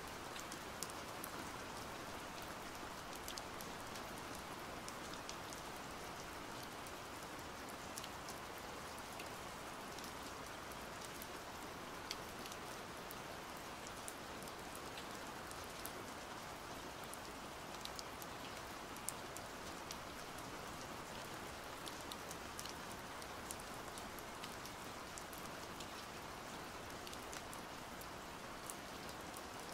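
Steady rain falling, an even hiss with scattered single drops ticking sharply now and then.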